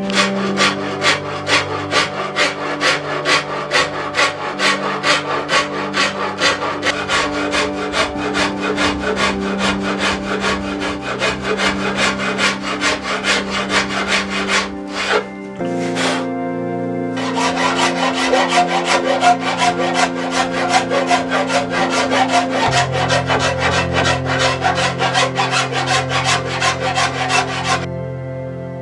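Regular back-and-forth strokes of a hand tool shaving Osage orange wood on a bow limb, with a short pause about halfway through.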